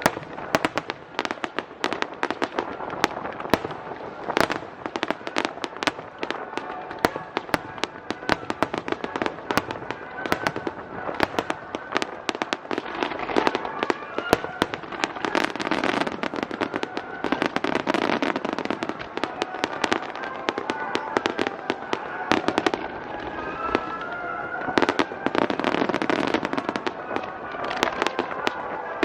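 Aerial fireworks shells bursting in a rapid, dense barrage of bangs and crackles, heaviest in the middle and near the end.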